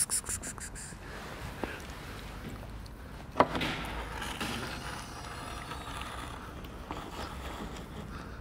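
A quick run of light clicks at the start, then a plastic food tray knocked down on a wooden bench with one sharp knock about three and a half seconds in, over a steady low background.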